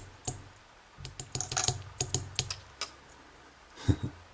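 Light, sharp clicks and taps of small metal tools working at the sliders of a dismantled dimple lock cylinder, clustered in a quick run in the middle, with one duller knock near the end.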